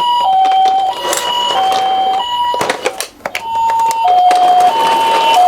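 Toy ambulance's electronic hi-lo siren, a Japanese-style two-tone 'pee-poh' alternating steadily between a higher and a lower note about every two-thirds of a second. It cuts out briefly about three seconds in and comes back a little lower in pitch, with a few clicks along the way.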